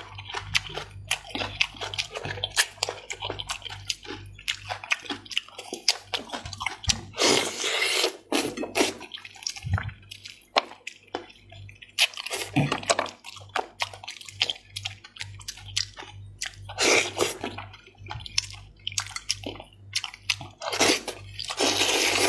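Close-miked wet eating sounds from someone eating chicken heads in a sticky chili sauce: rapid sharp smacks and clicks from chewing, with longer sucking slurps every few seconds.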